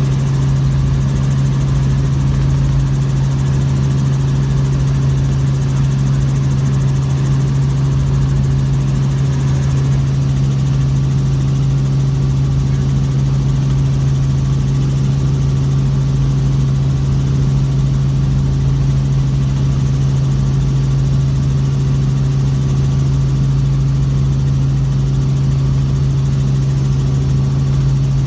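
Helicopter engine and rotor noise heard from inside the cabin in flight: a loud, unchanging mechanical hum with a strong low tone.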